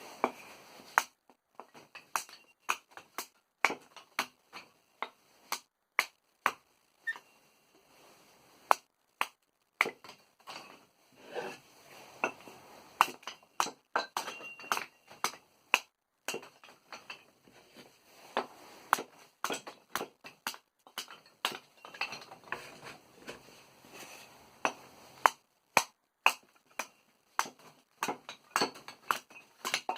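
Kindling being split by a blade: a long run of sharp strikes at irregular intervals, roughly one or two a second, many with a brief metallic ring from the blade.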